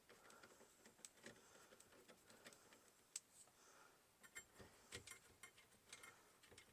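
Faint, irregular small clicks and ticks of a screwdriver working out the screw that holds the turn signal lever in the steering column, coming more often in the second half.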